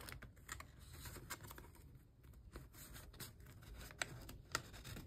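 Faint rustling and light ticks of paper bills and cash envelopes being handled, with two sharper clicks about four seconds in.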